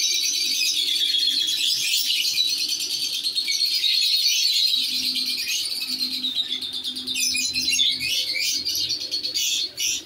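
A group of caged lovebirds chattering: a dense, continuous stream of shrill, rapid chirps that cuts off sharply just before the end.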